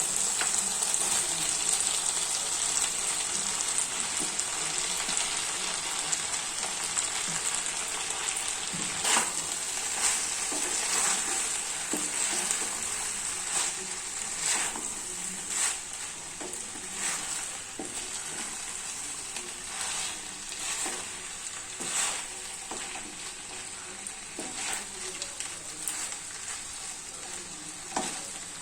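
Boiled pasta sizzling in a frying pan with chicken, vegetables and sauce as it is stirred, with short scrapes or taps of the utensil against the pan about once a second from partway through.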